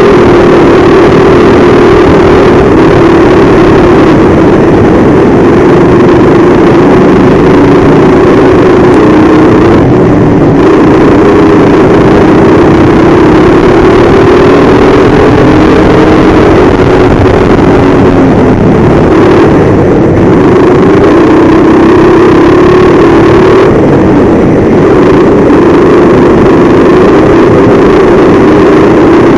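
Go-kart engine running hard, heard from on board at close range and loud. Its pitch rises and falls as the throttle opens and closes through the corners.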